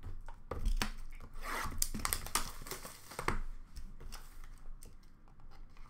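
A cardboard trading-card box being handled and torn open: packaging tearing and rustling, with scattered sharp clicks and knocks as it is set down and worked open.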